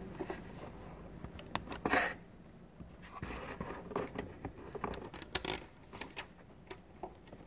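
Irregular light clicks and clinks of small metal parts: a bolt and spacer washers being handled and fitted by hand into a motorcycle steering damper mount, with a brief rustle about two seconds in.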